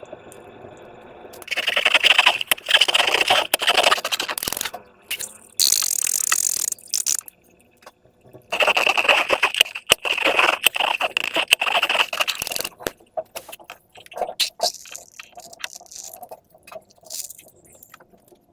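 Slime and rubber balloons being squeezed and handled: two crackling, scraping spells of a few seconds each with a short hiss between them, then scattered small clicks and crackles.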